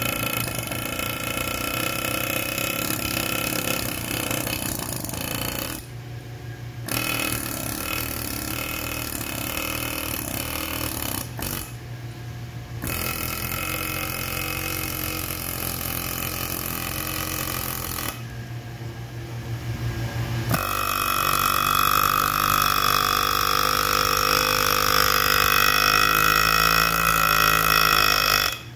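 GISON GP-7000R mini pneumatic air hammer, rated 7,000 blows per minute, running with a pointed chisel against a stone slab as a fast, even buzzing hammer. It pauses briefly twice and once for a couple of seconds, then runs louder and brighter from about two-thirds of the way through until it stops at the very end.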